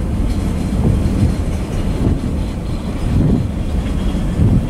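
Freight cars rolling past: steel wheels rumbling steadily on the rails, with an uneven clack about every second as the wheel sets go over the rail joints.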